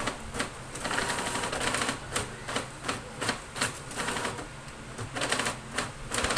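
Epson M2140 printer printing: the print carriage shuttles back and forth in passes about a second long, with clicks and short pauses between. The rattle is the weird noise that the owner traced to a small stone lodged in a gear.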